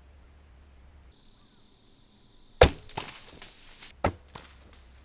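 A traditional bow shot: the string is loosed with a loud sharp slap about two and a half seconds in, followed by about a second of scattered clicks and rustles and a second sharp crack about a second and a half after the shot.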